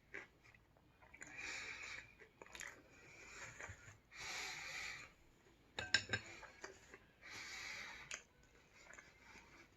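A person breathing loudly in and out close to the microphone while eating, one hissing breath about every three seconds. A quick cluster of sharp clicks, the loudest sound, comes a little past the middle.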